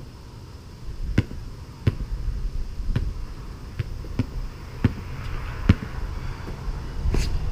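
Basketball bouncing on a hard surface, dribbled between dunk attempts, with sharp bounces at uneven intervals of roughly a second.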